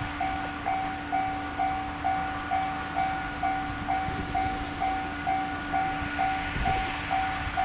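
Japanese level crossing's electronic warning bell ringing steadily about twice a second, over the low rumble of a passing train with a couple of heavier thuds from its wheels.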